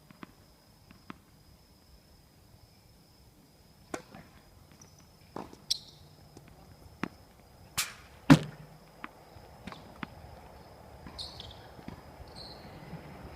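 Tennis balls being struck by rackets and bouncing on the court in a rally: a series of sharp thwacks at irregular intervals, the loudest pair a little past halfway.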